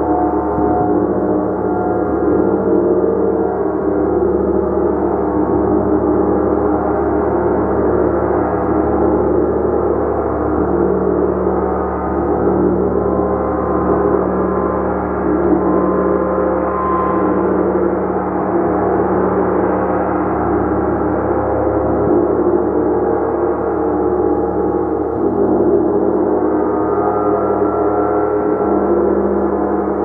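Gong played continuously: a dense, sustained wash of many overlapping tones, holding a steady loudness with small swells and no single strike standing out.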